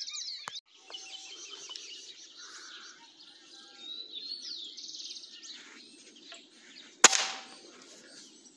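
Small birds chirping, then about seven seconds in a single sharp crack from a 5.5 mm M16 air rifle fired at a perched dove, dying away quickly.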